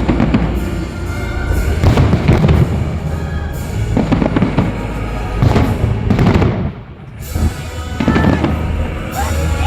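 Fireworks salute: aerial shells bursting in quick succession, about a dozen bangs with a short lull about seven seconds in, with music playing at the same time.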